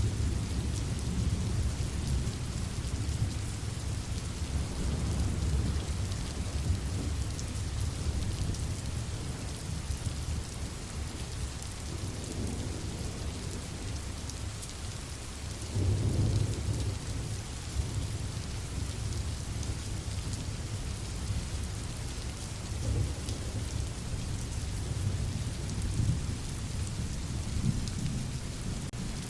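Steady rain with rolling thunder rumbling underneath, swelling and fading, with one louder roll about halfway through.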